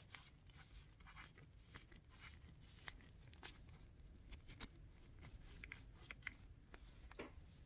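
Faint scattered clicks and scrapes of a used ball bearing being turned by hand in gloved fingers. The bearing does not sound good, rough rather than smooth-running.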